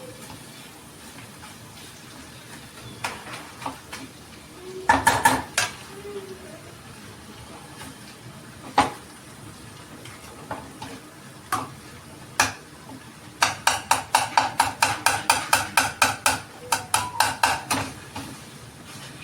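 Metal utensil knocking and scraping against a pan of sizzling food. There are a few scattered knocks, then in the second half a quick run of knocks, about four a second, for some five seconds.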